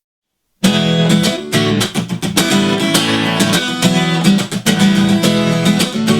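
Instrumental music led by a strummed acoustic guitar, starting after a brief silence about half a second in: the intro of a children's worship song before the singing begins.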